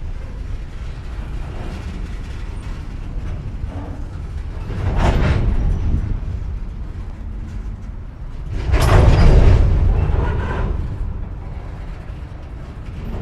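Empty coal hopper train's couplers banging as slack runs in or out while the train stops and restarts, over a steady low rumble. Two loud crashes, about five seconds in and about nine seconds in, the second longer and rolling on for about a second, with smaller knocks between.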